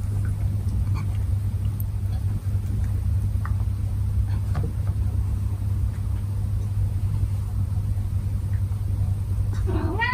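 A steady low hum throughout, with a few faint clicks, and a domestic cat giving one meow near the end.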